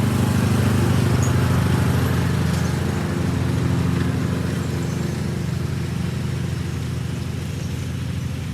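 John Deere riding lawn mower's engine running steadily, growing slowly quieter.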